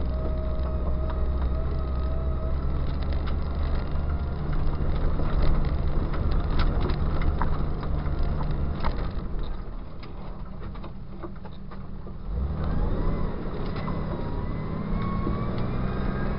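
Jeep engine running as it drives a rough dirt trail, with many short knocks and rattles over the engine sound. About ten seconds in the engine eases off and goes quieter, then picks up again with a rising whine.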